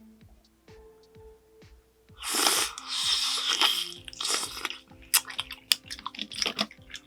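Noodles slurped and chewed: a loud slurp lasting about two seconds, then chewing with sharp, wet clicks. Soft background music plays throughout.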